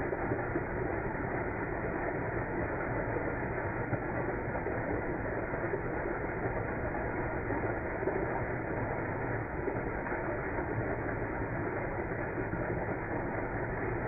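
Fountain jets splashing into the water of the basin: a steady rushing, splashing noise.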